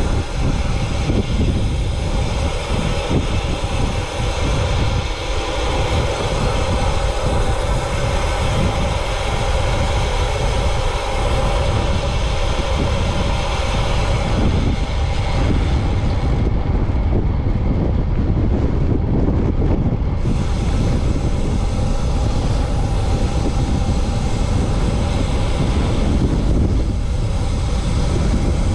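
Wind rushing and buffeting over the microphone during a fast road-bike descent: a loud, steady rumble with hiss.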